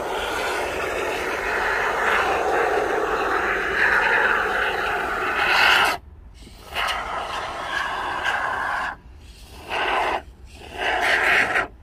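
Aerosol spray can hissing: a continuous spray for about six seconds, then three shorter bursts with pauses between them.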